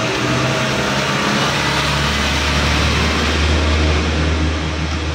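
A motor vehicle's engine running close by, a low steady drone that builds from about a second and a half in and is loudest near the end, over a broad hiss of noise.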